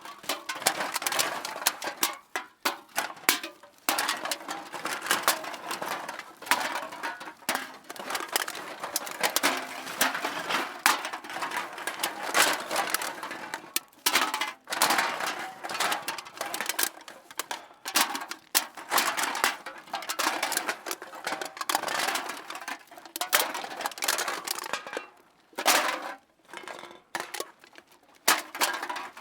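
Empty aluminium beer and soda cans being tossed into a bag, clattering and clinking against each other in a steady jumble of rattles, with the bag rustling. The clatter thins out to a few scattered clinks near the end.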